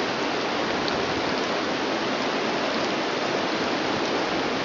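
Swollen river in flood, running close to peak flow, with a steady, even rushing of fast water.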